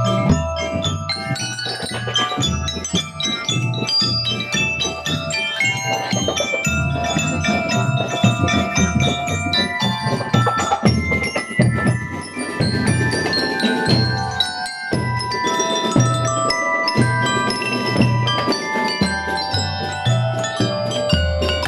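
Marching drum and lyre corps playing: aluminium-bar bell lyres (marching glockenspiels) struck with mallets ring out the melody over steady bass drum beats.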